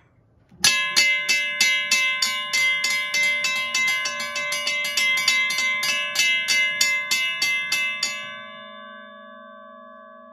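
WABCO and Western-Cullen-Hayes electromechanical railway crossing bells ringing together on battery power, their hammers striking the gongs in rapid repeated strokes. The strokes start about half a second in and stop around eight seconds in, leaving the gongs ringing on and slowly fading.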